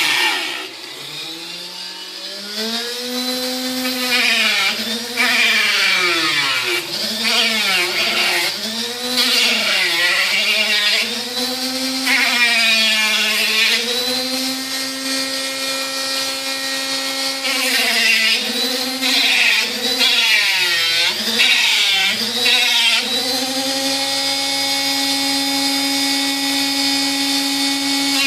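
Dremel rotary tool grinding the edges of plastic armor parts, its motor whine repeatedly dipping and recovering in pitch as it bites into the plastic and frees again, then running steadily near the end.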